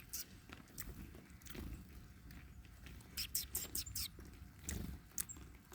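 Animals eating feed close by: quiet, crisp clicking and crunching in short quick runs, with a soft thump about three-quarters of the way through.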